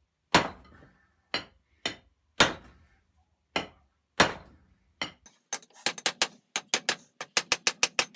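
Hand hammer striking a glowing length of rebar on a small Harbor Freight anvil, each blow a sharp clank with a short ring. First come heavy blows about one a second, upsetting the hot end of the bar held upright on the anvil. Then from about halfway a quicker run of lighter blows, four or five a second, on the bar laid flat across the anvil.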